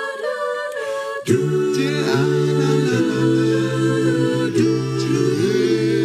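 Unaccompanied voices singing in several-part harmony, with held notes. The lower parts come in about a second in.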